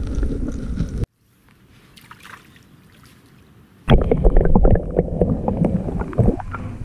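Muffled, rumbling water noise at an underwater camera. It drops abruptly to a low hiss about a second in, then returns loud about four seconds in, with a rapid series of knocks and clicks as a black bream, hooked on a hard-body lure, thrashes close to the camera.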